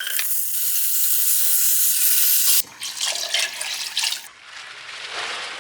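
Water running hard from a kitchen tap for about two and a half seconds, then cutting abruptly to quieter running or splashing water.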